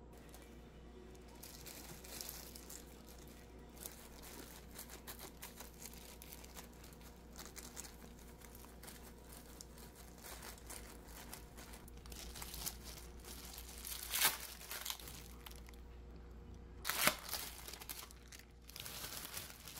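Disposable plastic gloves crinkling and rustling as hands press and spread rice over dried laver sheets for kimbap and lay cheese slices on top, with two louder crinkles near the end.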